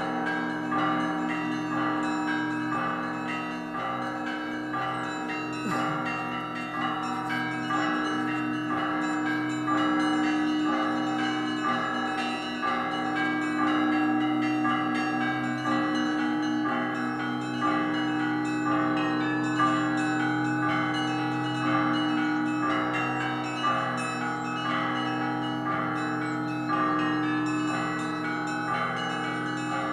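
Russian Orthodox monastery bells rung in a festive peal: a steady rhythm of repeated strikes on the smaller bells over the lingering hum of the large bells.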